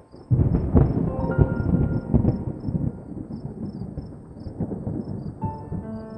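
A sudden loud rumbling, crackling noise that sets in about a third of a second in and eases off after a few seconds, over soft background music and a steady high insect chirping.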